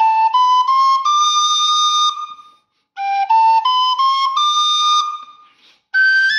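Thai khlui duct flute playing a five-note rising run (sol, la, ti, do, re) with the top note held. The run is played twice, and a new run starts in the higher register near the end.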